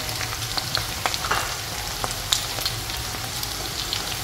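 Batter-coated chicken pieces deep-frying in hot sunflower oil in a kadai: a freshly added batch, with a steady sizzle dotted with scattered sharp pops and crackles as the moisture boils off.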